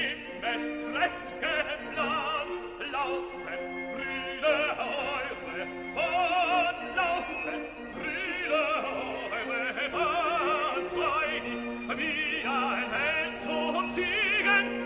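Background music in an operatic, classical style: a singing voice holding notes with strong vibrato over instrumental accompaniment.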